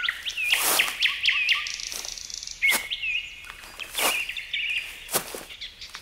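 Small hand trowel digging and scraping into damp sand, a scrape roughly once a second. Small birds chirp repeatedly behind it through the first half or so.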